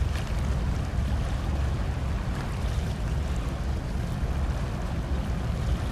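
Steady low rumble with wind buffeting the microphone and a faint hiss above it.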